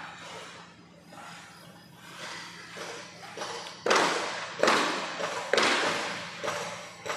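A series of loud thuds, roughly one a second, beginning about four seconds in, each fading out in a long echo as in a large hall.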